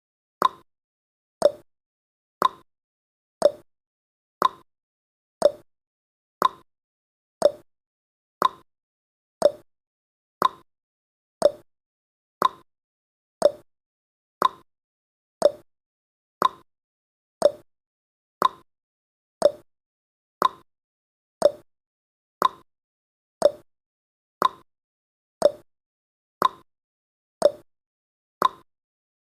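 Ticking sound effect of a countdown timer: a steady tick-tock of one sharp click per second, alternating between a higher tick and a lower tock.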